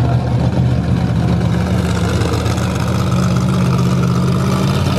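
A car engine running steadily at low revs, its pitch lifting slightly about two seconds in.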